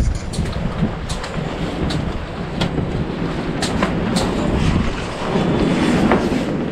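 Footsteps at a walking pace, a click about every three-quarters of a second, as a door is opened and walked through, over a steady low rumble of wind on the microphone.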